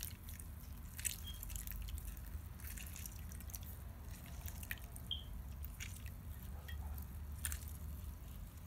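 Orange squeezed by hand through a mesh strainer, juice dripping and trickling into a plate, with scattered small wet clicks and squishes over a low steady hum.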